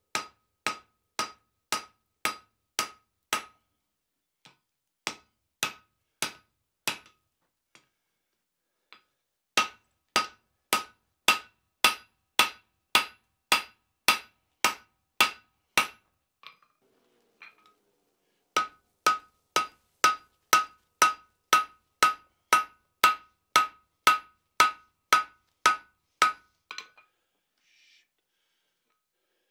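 Hand hammer striking red-hot 5160 steel on an anvil, forging out the tomahawk head. Steady runs of blows about two a second, each with a short ring from the anvil, broken by a few brief pauses and some lighter taps.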